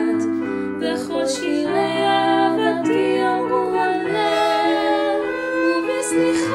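Young female voices singing a Hebrew song, accompanied by a light chamber ensemble.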